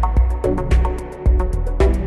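Instrumental background music with a steady beat: quick, even ticks over deep bass notes and sustained pitched tones.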